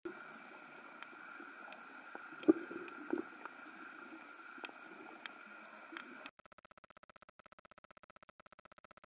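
Underwater ambience heard through a camera's housing: a steady faint hiss with scattered sharp clicks and crackles, one loud knock about two and a half seconds in. After about six seconds it switches to a fast, even pulsing buzz.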